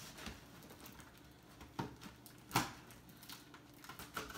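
Knife cutting the packing tape on a cardboard shipping box: quiet scratching, with two short, sharp cuts or scrapes a little under two and about two and a half seconds in.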